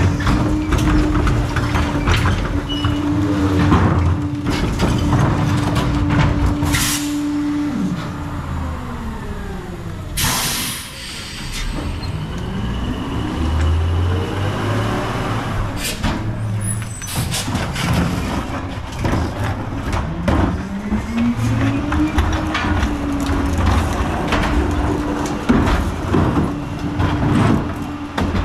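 CCC rear-loading garbage truck with a PakMor packer body. Its diesel engine runs at a steady speed while carts are tipped into the hopper, then winds down. A short, loud air-brake hiss comes about ten seconds in. The engine then revs up and down as the truck pulls forward to the next stop, where it settles back to a steady run.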